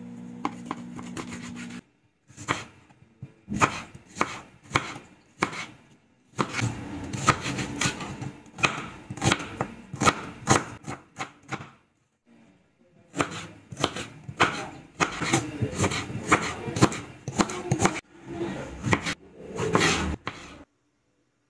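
Kitchen knife cutting milkfish, onion and eggplant on a plastic cutting board. It makes runs of sharp knocks as the blade hits the board, with short pauses between runs, and stops near the end.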